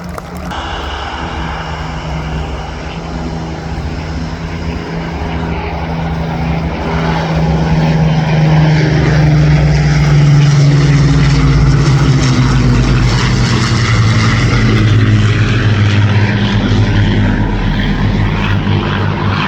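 WWII piston-engined propeller warbirds of the Battle of Britain Memorial Flight flying past: a steady engine drone that grows louder, peaks about halfway through, and drops in pitch as they go by.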